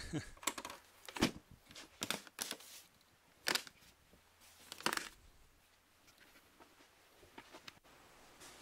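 A bag of chrome guitar tuners being handled and put into a guitar case: plastic rustling and a few sharp clacks and knocks over the first five seconds, then quiet.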